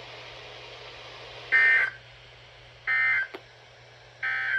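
Emergency Alert System end-of-message data tones: three short, buzzy bursts of digital squawk, about a second and a half apart. They signal the end of the alert.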